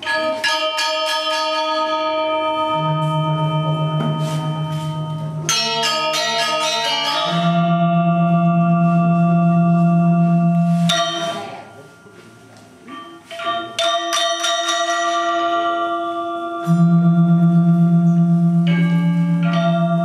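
Balinese gamelan: bronze metallophones struck with mallets, their notes ringing on and overlapping, over deep held tones that waver with a shimmering beat. The playing drops away briefly about two-thirds of the way through, then comes back in loudly.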